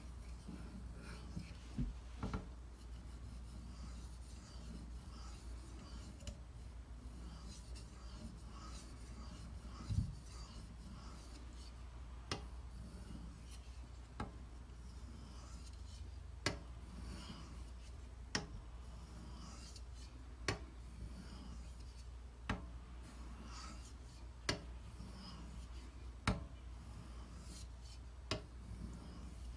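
Knife blade of CTS-204P steel stroked across a combination water stone in a run of slow sharpening passes, a faint scraping rub, with a light click about every two seconds.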